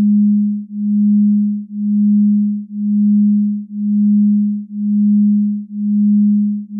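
A low, pure electronic tone held at one pitch, swelling and fading about once a second in an even pulse.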